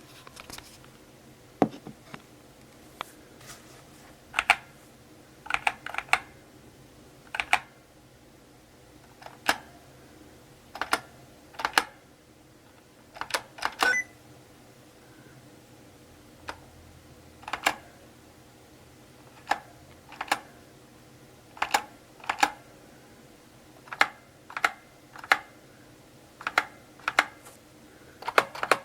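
Slow, unhurried typing on a mechanical keyboard: separate sharp key clicks with gaps between them, many heard as a quick double click as each key goes down and comes back up.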